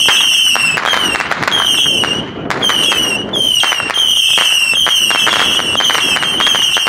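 Fireworks going off in a bonfire: a shrill whistle that keeps cutting out and starting again, each time sliding slightly down in pitch, over rapid, dense crackling and popping.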